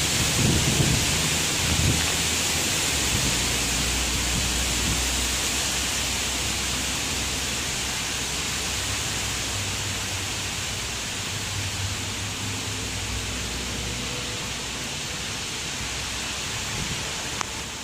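Heavy rain falling steadily, a dense even hiss, over a faint low hum from a diesel train approaching in the distance.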